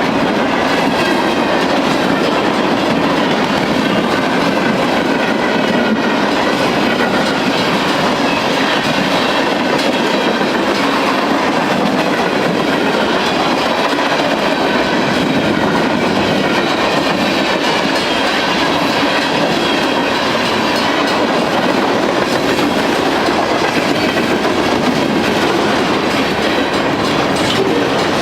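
Freight train cars rolling past at speed, a loud, steady rush of wheels on the rails.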